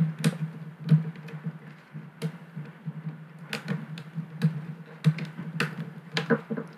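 Irregular clicking and tapping of calculator keys and a thin metal pick as fingers press on the DM42's keyboard and pry at its stuck-down metal bezel plate, which is held really tight.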